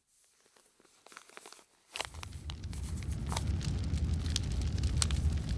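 Rain ambience: a low rumble that comes in about two seconds in and slowly swells, with scattered sharp ticks and drips over it. Before that, only a few faint clicks.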